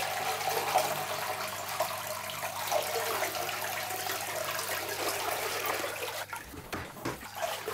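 Water poured from a plastic jug into a plastic fish-catching cup hung in an aquarium, splashing into the tank water as it refills. The pour stops about six seconds in.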